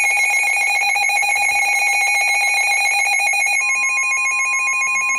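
Emergency Alert System attention signal: a harsh, steady two-tone alarm with a fast flutter. A second, purer tone joins it about three and a half seconds in.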